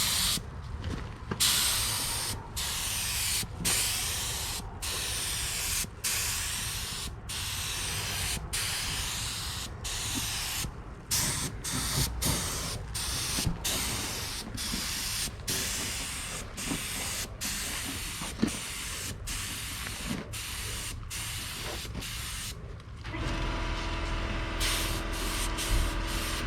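Air-powered paint spray gun hissing in repeated passes, cutting off briefly about once a second as the trigger is let go. Near the end a steady low machine hum comes in under it.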